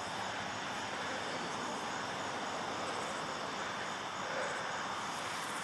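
Steady rushing noise with no distinct bangs or events.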